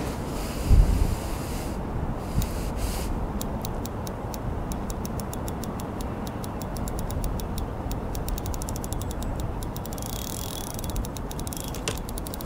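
Fixed-spool fishing reel ticking in a fast even rhythm, the ticks quickening, as a hooked carp is played on light gear. Low wind rumble on the microphone, with one bump about a second in.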